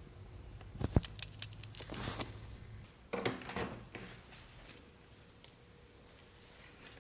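Handling noises: a cluster of sharp clicks and knocks about a second in, then rustling, and another burst of knocks and rustling around three seconds in.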